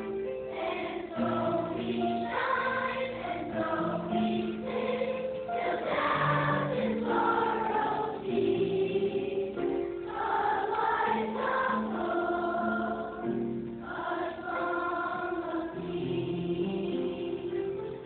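Children's choir singing a song in phrases of long held notes, with short breaks between the phrases.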